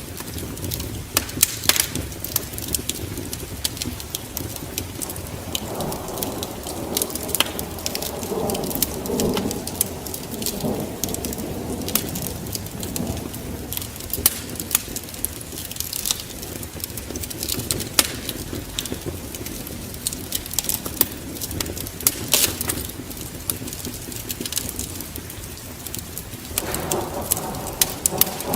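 Wood fire crackling steadily over falling rain, with a roll of thunder rumbling from about six seconds in, fading by eleven, and another beginning near the end.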